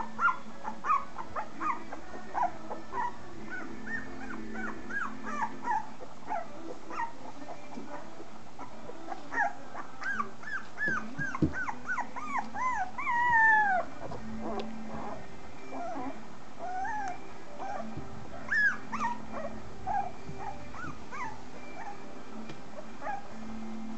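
Young puppies squeaking and whimpering: many short, high, falling squeaks scattered throughout, with a longer, drawn-out falling whine about 13 seconds in, the loudest.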